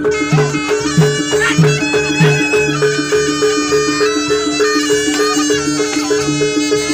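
Jaranan ensemble music: a reedy, shawm-like wind melody over a quick, even two-note pattern of tuned percussion and low drum or gong beats.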